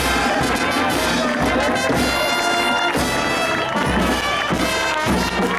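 Marching brass band playing: trumpets and trombones sounding held notes together over a steady drum beat.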